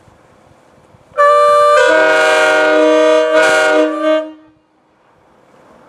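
Five-chime locomotive air horn sounding one long chord for about three seconds, one bell speaking first and the others joining about half a second later. It has a regular 4 bell instead of a 4A, so it blows the Canadian chord.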